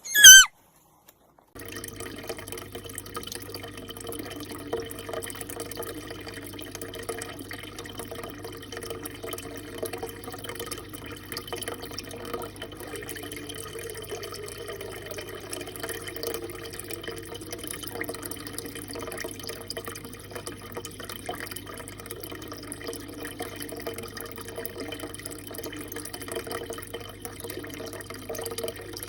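A short, loud, high-pitched call right at the start, then steady running water with a faint low hum underneath.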